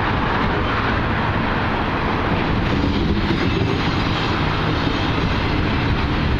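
Norfolk Southern freight train rolling past, a steady rumble of locomotive engines and wheels on rail.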